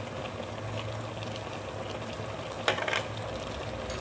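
Steady hum and hiss of an induction cooktop running under a steel cooking pot, with a short clatter of kitchenware about three-quarters of the way through.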